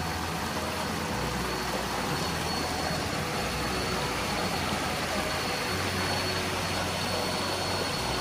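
Small river cascade of water running over granite rock slabs, a steady rushing noise with a low rumble that swells and fades.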